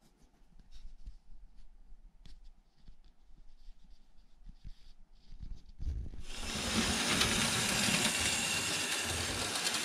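Märklin 3084 BR 50 H0 model steam locomotive running on metal track, with faint clicks at first. From about six seconds there is a loud, steady, hissing whir of the motor and wheels.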